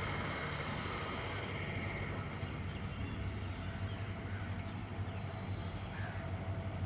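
Twin EMD WDG4 diesel locomotives, two-stroke diesel engines, running with a steady low rumble, faint and even.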